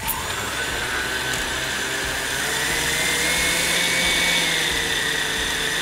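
Countertop blender motor running at full speed, whirring hot chocolate into a froth; it starts abruptly, and its whine rises slightly about halfway through, then eases a little.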